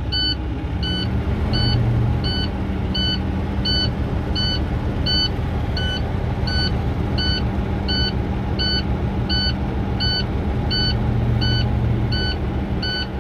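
Dash warning buzzer of a truck beeping steadily, about three beeps every two seconds, over the idle of a Cummins ISX15 inline-six diesel. It is the low-air warning, sounding while the air tanks are still building pressure after start-up.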